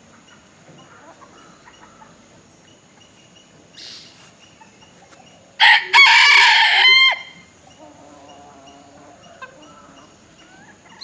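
A rooster crows once, a short crow about halfway through that ends on a falling note, over soft clucking from the hens.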